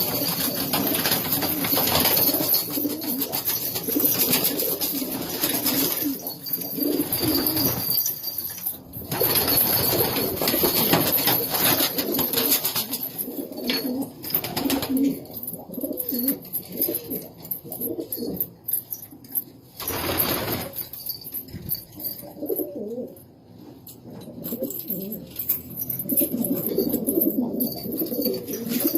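Several domestic pigeons cooing continuously, with a brief broad rustling noise about twenty seconds in.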